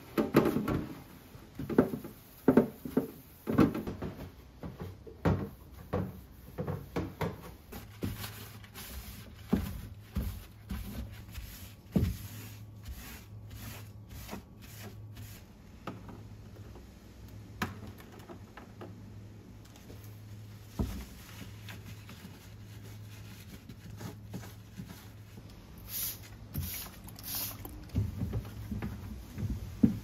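Plastic refrigerator trays and drawers being scrubbed with a sponge and wiped by hand: rubbing strokes with irregular knocks and clicks of plastic being handled, busiest in the first few seconds and again near the end.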